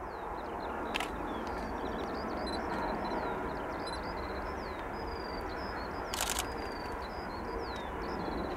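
Steady distant rumble of an Airbus A330 jet airliner on final approach, with small birds chirping throughout. Sharp clicks about a second in and again around six seconds in.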